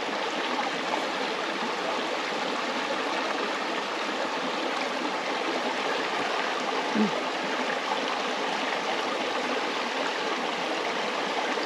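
Steady rushing of a river's flowing water over rocks in the shallows, with one short 'mm' from a person about seven seconds in.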